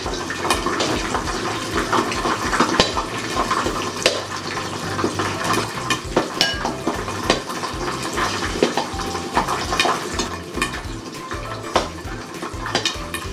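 Pork leg deep-frying in hot oil: a steady sizzle with frequent crackles and pops.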